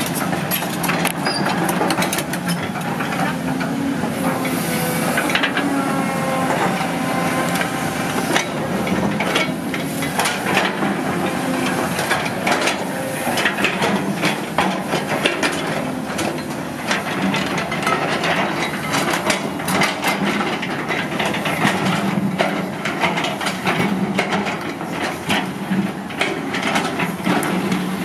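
Caterpillar 320D GC hydraulic excavator at work: its diesel engine runs steadily under the hydraulics while the steel bucket digs and spreads loose earth, with frequent clanks and scrapes throughout and a brief whine that shifts in pitch about five seconds in.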